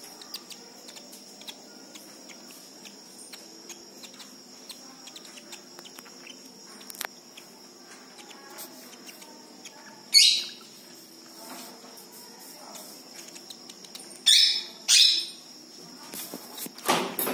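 Baby palm squirrel giving short, high-pitched squeaking chirps while being handled: one about ten seconds in, two close together a few seconds later, and one more near the end. A thin, steady high insect-like trill runs underneath.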